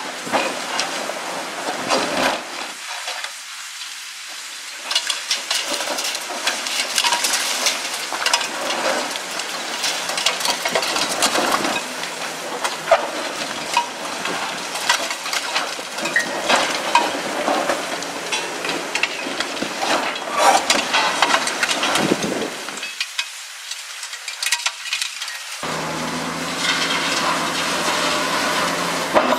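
Concrete crunching and crackling, with many small irregular knocks of falling debris, as a Caterpillar 345C L long-reach excavator breaks apart the top of a concrete silo. Near the end the excavator's diesel engine comes through, running steadily.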